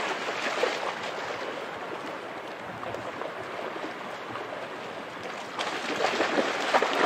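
River water rushing over rocks, with splashing from a dog wading through the shallows; the splashing gets louder and choppier near the end.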